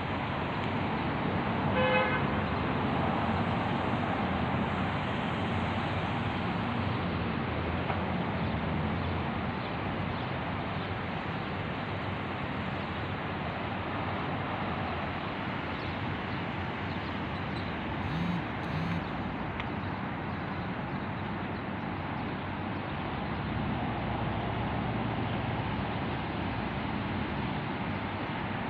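Steady road traffic noise with a single short car horn toot about two seconds in.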